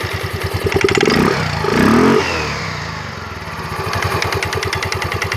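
Yamaha Mio M3 scooter's 125 cc single-cylinder engine running and being revved hard, rising about a second in and again near four seconds. The final-drive and rear CVT bearings have just been replaced.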